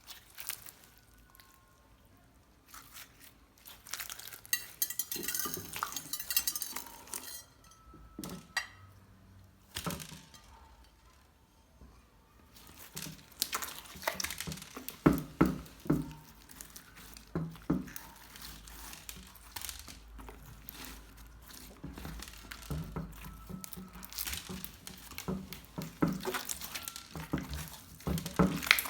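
Slime being mixed by hand with gem toys, giving irregular crackling, popping and squishing. It is sparse at first and gets busier after about twelve seconds.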